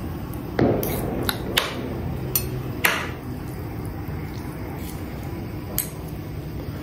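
Metal fork and spoon clinking and scraping against a plate while twirling noodles: several sharp clinks in the first three seconds and one more near the end.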